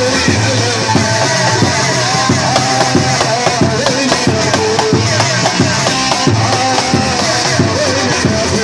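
Live band music: an ornamented, wavering melody line over a steady drum beat, with no singing.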